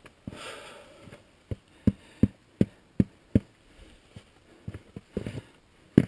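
A climber scrambling up a rock chimney: a short breathy rush, then a quick run of six sharp knocks, about three a second, as boots, gloves and gear strike the rock, and a few more knocks near the end.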